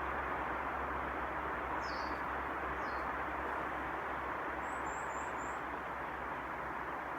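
A varied tit giving a few short, high, thin calls, with a quick run of four very high notes about halfway through. They sound over a steady hiss with a low hum, which is the loudest sound throughout.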